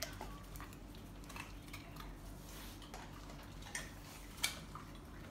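A Belgian Malinois chewing a piece of raw purple carrot: a few faint, scattered crunching clicks, the sharpest a little over four seconds in.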